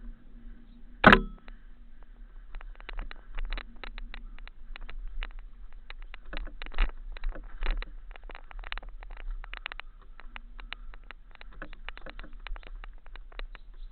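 Mountain bike clattering over a rocky descent: irregular rattles and knocks of chain, frame and tyres on stone, with one loud knock about a second in, over a steady low rumble.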